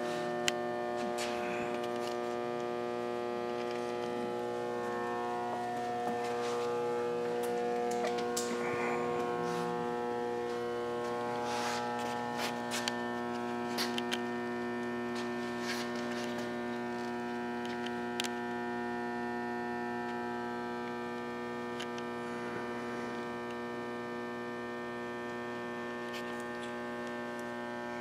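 Hengli HSA1505 belt furnace running: a steady electrical hum at several pitches from its cooling blowers and ultrasonic belt cleaner, with scattered faint clicks.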